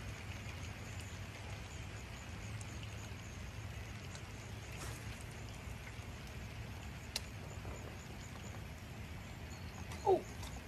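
Quiet outdoor background with a steady low hum. A single sharp click comes about seven seconds in, and a brief pitched sound falls sharply near the end.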